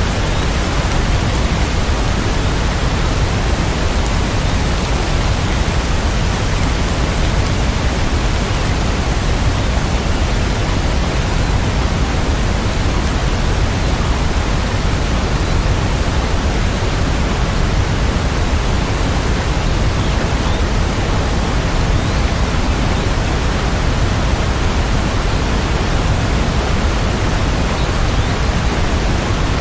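Rain falling as a steady, even hiss, with no thunder or single drops standing out.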